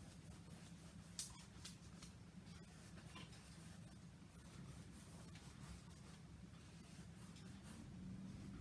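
Faint scratchy strokes of a paintbrush dragged across canvas, blending acrylic paint, with a sharp tick about a second in, over a low steady hum.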